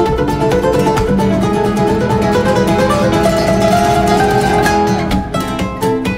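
Background music: an acoustic guitar plucking a busy melody.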